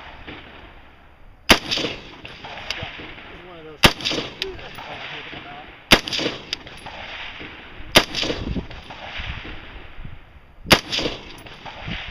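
Scoped AR-15-style rifle firing five single shots, about two to three seconds apart, each crack followed by a long echo.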